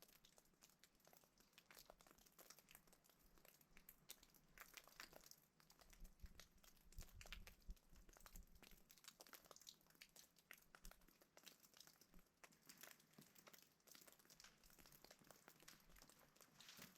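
Near silence, with faint, irregular crackling and ticking throughout.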